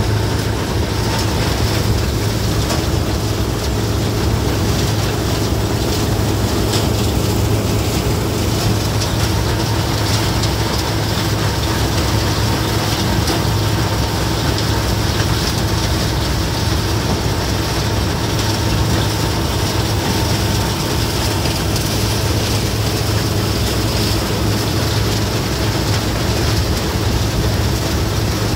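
An engine or motor running steadily at one pitch, with a constant low hum and no change in speed.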